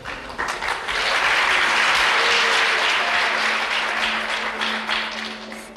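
Audience of children applauding, swelling within the first second and dying down near the end, with a faint orchestral note sounding underneath.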